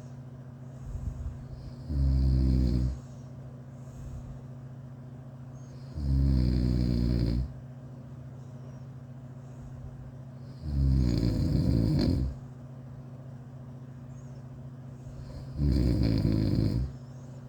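A person snoring: four long snores, one about every four to five seconds, each lasting over a second. A steady low hum runs underneath.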